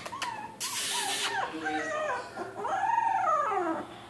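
Two-week-old Labrador retriever puppies whimpering and squealing: a run of short high cries, a brief hiss about a second in, then a longer wail that rises and falls near the end.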